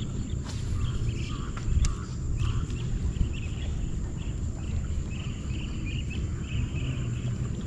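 Waterside ambience: a steady high insect drone with short chirps repeated about twice a second, over a low rumble.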